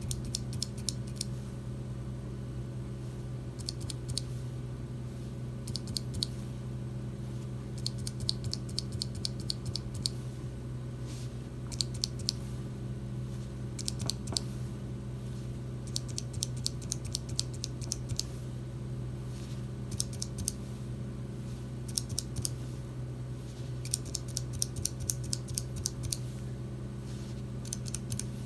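Mechanical keyboard switches being typed on in short bursts of rapid clicks with brief pauses between, over a steady low hum.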